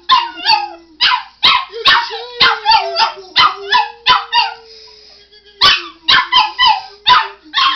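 A chiweenie yapping in quick sharp barks, about three or four a second, over a man's long held sung note. The barks stop for about a second and a half about four seconds in, then start again.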